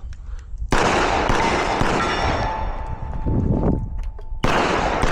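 A string of 9mm pistol shots from a Glock 34 fired in quick succession at steel targets, starting about a second in, with the struck steel plates ringing. Another shot comes near the end.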